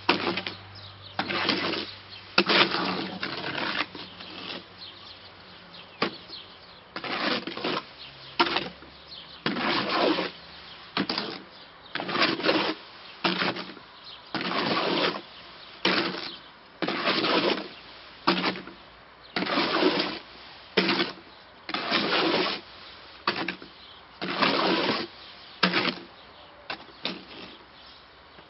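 Shovel scraping and churning concrete mix in a wheelbarrow, in repeated strokes about one every second or so, stopping near the end.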